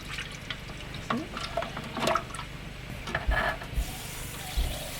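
A spoon stirring the liquid ice cream base of milk, cream and sugar, with a few short, irregular clinks and scrapes against the container.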